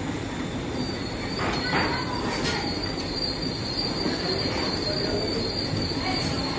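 Masaka fabric inspection machine running, its rollers drawing cloth steadily over the lit panel: a continuous mechanical whir with a thin high-pitched whine that comes in about a second in.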